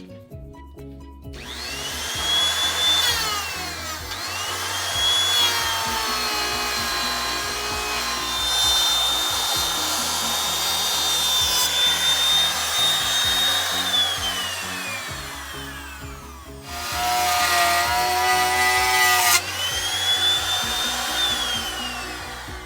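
Electric power tool cutting wood. The motor speeds up and winds down several times, with a long steady run that then winds down. A lower, harsher burst comes near the end, followed by another spin-up, all over background music.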